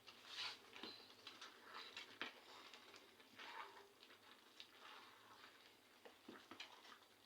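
Near silence with faint, scattered light clicks and scrapes.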